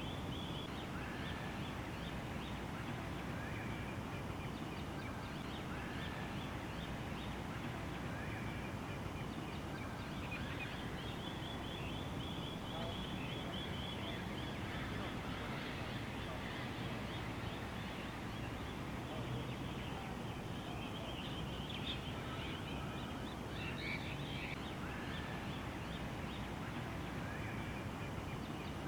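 Outdoor ambience of birds chirping with many short calls, over a steady background noise.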